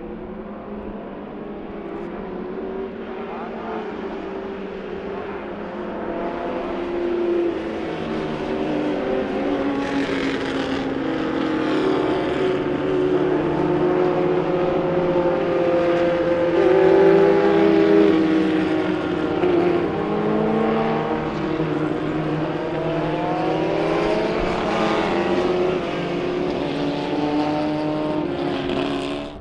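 A pack of 1960s cigar-shaped formula racing cars running together, many engines heard at once with revs rising and falling as they change gear. The sound builds over the first half as the cars come closer, then stays loud.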